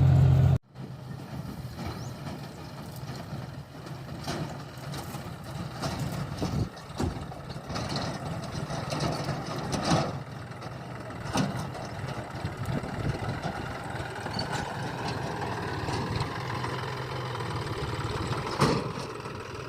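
A loud, steady diesel engine drone cuts off abruptly just after the start. Heavy diesel machinery then keeps running at a moderate level, with a few sharp knocks and clanks scattered through.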